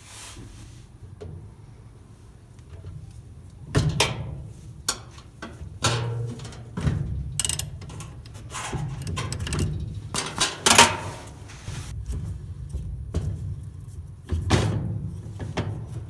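Irregular metallic knocks and clanks of a half-inch ratchet with extension and an open-end wrench against the dryer's sheet-metal blower housing as the blower wheel is broken loose from the motor shaft, with handling rubs in between; the loudest clank comes about eleven seconds in.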